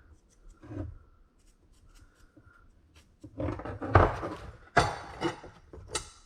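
Steel rebar being handled for marking: a light knock about a second in, then a run of scrapes and sharp knocks in the second half, three of them louder than the rest.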